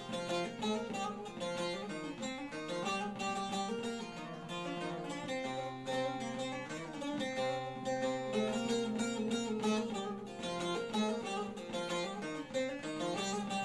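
Bağlama (long-necked Turkish saz) played with a pick: a fast instrumental passage of quick picked melody notes over a steady low note held beneath.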